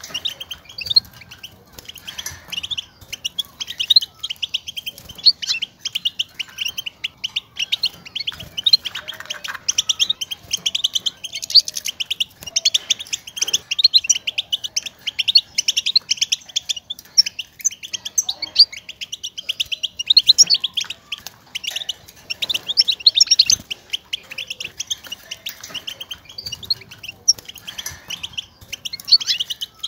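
European goldfinch twittering: a fast, continuous stream of short, bright chirps and calls. These are the contact calls goldfinches use to call to one another and announce where they are.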